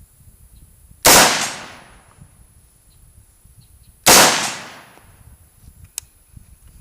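Bushmaster AR-15 rifle in 5.56 with a shark-gill muzzle brake firing two shots about three seconds apart, each shot's report echoing away. A short sharp click about six seconds in.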